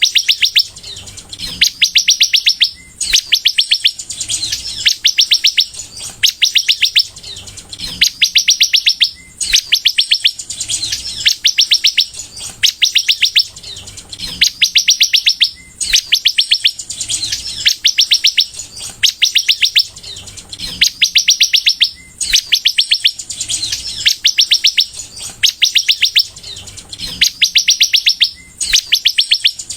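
Sunbird (kolibri) singing in full song: high, rapid trills of closely spaced ticking notes, each lasting about a second, repeated over and over with short breaks.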